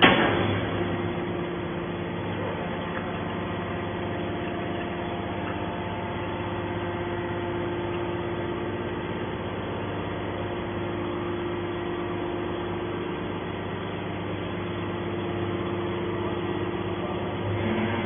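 Hydraulic scrap metal baler running, its power unit humming steadily while the ejection ram pushes a compressed bale of scrap out of the press chamber. A loud clank at the very start.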